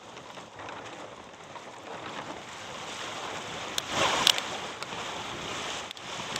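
Wind and water rushing around a sailing dinghy on open water, growing louder and peaking in a brief surge about four seconds in.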